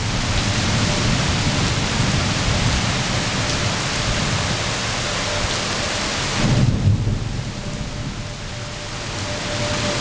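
Heavy rain pouring steadily, with thunder rumbling low and swelling loudest about two-thirds of the way through. A faint, steady tornado warning siren tone comes and goes behind the rain.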